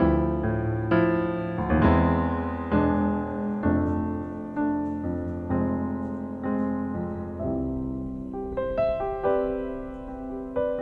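Background piano music: slow, gentle chords and single notes struck and left to ring out.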